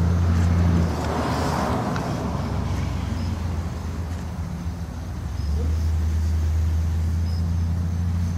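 A car engine idling with a steady low hum; the hum thins about a second in and comes back stronger about five and a half seconds in, with a brief swell of noise between one and two seconds in.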